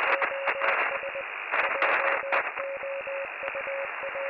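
Crackling, muffled radio-style static with a beeping tone that keys on and off in short and long dashes, like Morse code.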